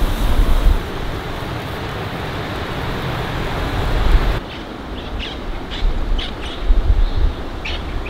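Wind buffeting the microphone over a steady hiss. About four seconds in the hiss stops suddenly, and a handful of short bird chirps come through the wind.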